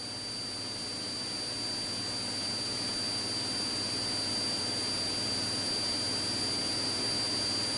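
Police helicopter cabin noise heard through the crew intercom: a steady low engine and rotor hum with a thin, high, steady turbine whine, slowly growing a little louder.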